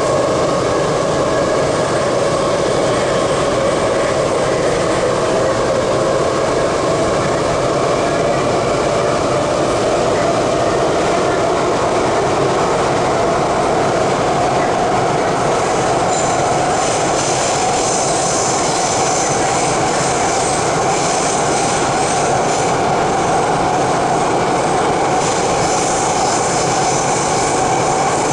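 Cabin noise of an MTR C-Train metro car running through a tunnel: a steady rumble of wheels on rail under a whine that slowly rises in pitch. A high hiss joins about halfway through and again near the end.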